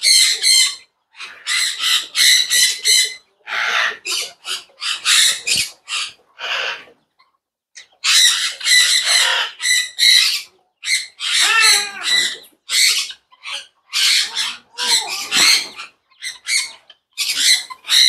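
Parrots squawking in a rapid series of short, harsh calls, with a pause of about a second roughly seven seconds in.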